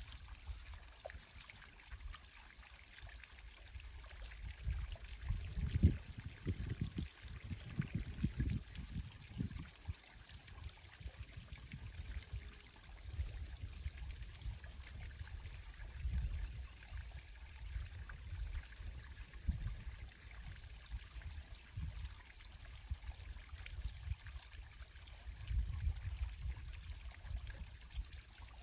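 Wind buffeting the microphone in uneven gusts, a low rumble that swells and fades, strongest around six to ten seconds in and again near the end, over a faint steady hiss.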